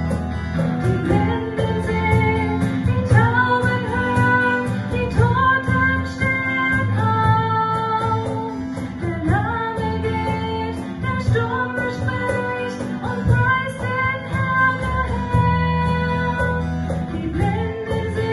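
A song with a woman singing held, sliding notes over guitar accompaniment.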